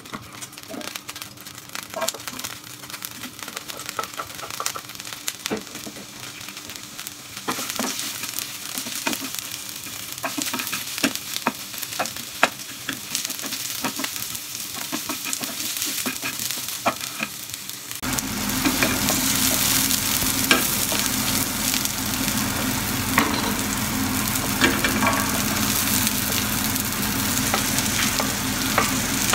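Chopped onion and garlic sizzling in hot oil in a nonstick frying pan, stirred with a wooden spatula that clicks and scrapes against the pan. About two-thirds of the way through the sizzle turns louder and denser, and near the end cut carrots, green beans and celery are tipped into the pan.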